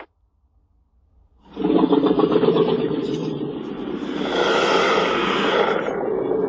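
Godzilla roar sound effect from the 2014 film. After about a second and a half of silence, a long, rasping, pitched roar starts and runs on, growing brighter and harsher around the middle.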